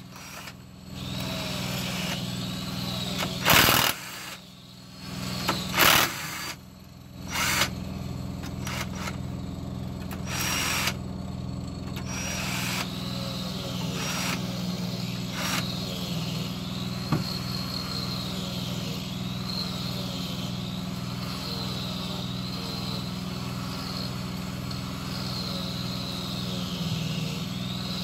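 Several short bursts of a power tool driving a socket on the diesel engine's cylinder-head bolts, mostly in the first ten seconds, over a steady mechanical hum with a low pulse.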